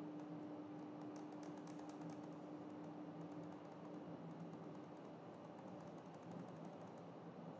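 Faint tapping on a computer keyboard, in quick runs of light clicks, over a low steady hum that fades out about halfway through.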